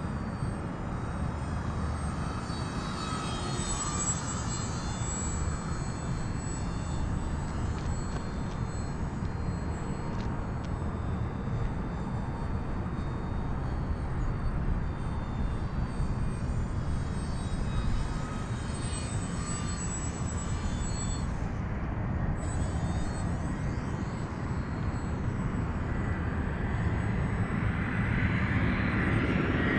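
Electric motor and propeller of an E-flite Pitts S-1S RC biplane in flight, a high whine that swells and fades and shifts in pitch as the plane circles past. It grows louder near the end.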